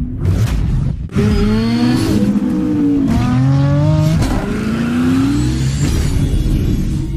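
Car engine sound effect revving up through the gears: a whoosh in the first second, then three rising pulls in pitch with a drop at each shift.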